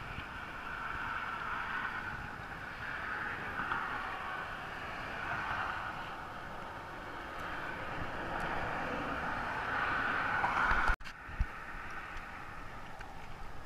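Road traffic passing on a bridge: a steady hiss of tyres that swells and fades as vehicles go by. It cuts out abruptly about eleven seconds in, followed by a single thump.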